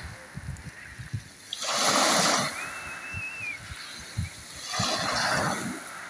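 Small sea waves washing in on a pebble shore: two hissing surges of wash, about three seconds apart, the second slightly fainter.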